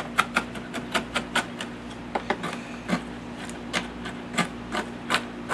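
Knife chopping macadamia nuts on a wooden cutting board: quick, irregular knocks of the blade striking the wood, coming fast at first and spacing out toward the end.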